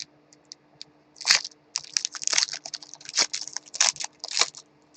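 Trading card pack wrapper being torn open and crinkled by hand: a string of short crackles with a louder rip about a second in, then a dense run of crinkling.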